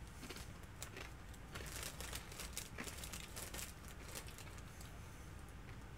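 Faint crinkling and rustling of a plastic tortilla-chip bag as chips are taken out of it, most of the crackles in the first four seconds.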